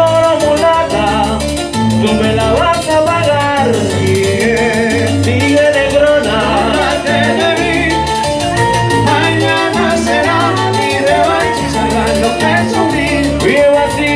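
Live salsa band playing through loudspeakers, keyboard and a repeating low bass line carrying the groove.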